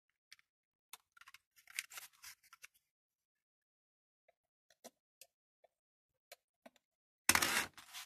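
Handling noise from a small plastic USB hub being picked up and turned over in the hand: crinkly plastic rustles and small clicks, busiest about a second or two in, then a few scattered ticks, and a louder half-second of handling noise near the end.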